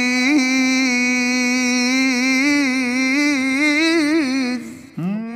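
A male Quran reciter (qari) in tilawah style holding one long vowel on a single note, ornamented with small wavering turns. The note fades about four and a half seconds in and is followed by a short rising-and-falling vocal swoop.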